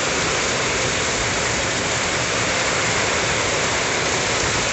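Heavy rain pouring down in a steady, even hiss, with no wind.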